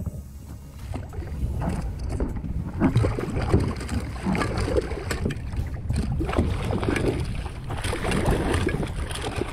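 Water splashing and churning as a hooked shark thrashes at the surface against a kayak, in rough, irregular strokes starting about a second in.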